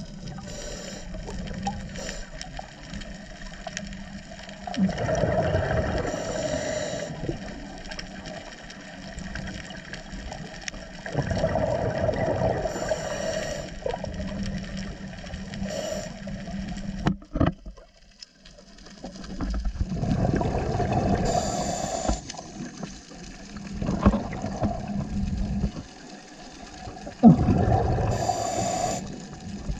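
Underwater sound of a scuba diver breathing through a regulator: bubbling, gushing swells of exhaled bubbles lasting two to three seconds, about every seven seconds, over a steady underwater hiss.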